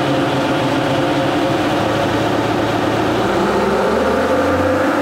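Nissan Patrol 3.0-litre turbo diesel running on a chassis dyno, driving its wheels on the rollers: a loud, steady engine and drivetrain drone.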